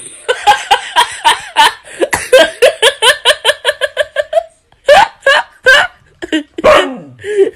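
A person laughing hard: a long run of quick, high 'ha-ha' bursts, about five a second, then a few separate laughs with short pauses near the end.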